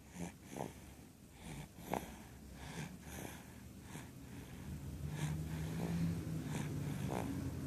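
Snoring during sleep: a run of short, quick breath sounds, joined about five seconds in by a steady low drone.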